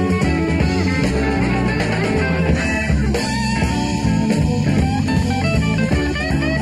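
Live Southern rock band recording: an instrumental passage with electric guitars to the fore over bass and drums, in a blues-rock style.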